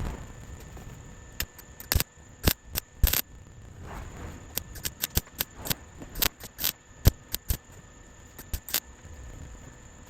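Welder laying a string of short tack welds on the sheet-steel transmission tunnel: about twenty brief, sharp crackling bursts at irregular intervals, some only a blip and a few lasting a fraction of a second.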